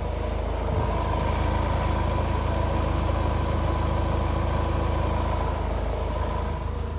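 Car engine idling steadily, with a thin steady high tone through the middle few seconds.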